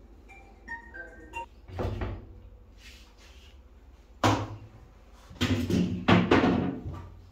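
Hollow knocks and clunks from handling around an opened washing machine cabinet: one about two seconds in, another a little past four seconds, then a cluster near the end. A few short high-pitched tones sound just before the first knock.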